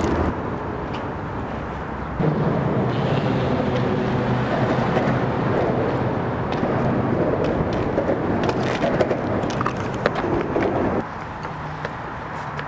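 Outdoor street ambience with traffic noise, switching abruptly to a different background about two seconds in and again near the end. A few light knocks come late on.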